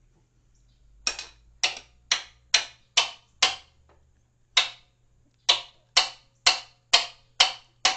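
A steel hammer strikes a wrench about thirteen times in sharp metallic blows, roughly two a second with a short pause near the middle. It is hammering on the wrench to break loose a very tight hydraulic drain plug.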